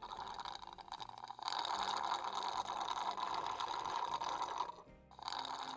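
Slurping through a drinking straw, a noisy sucking of liquid and air. It grows stronger after about a second and a half, breaks off for a moment near the end, then starts again.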